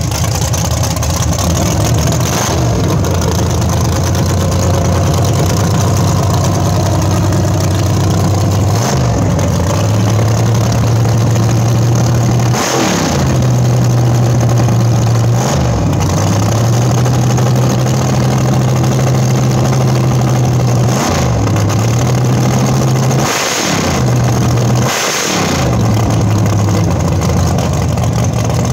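Drag race car's engine idling loudly, blipped to quick revs about seven times, with two blips close together near the end.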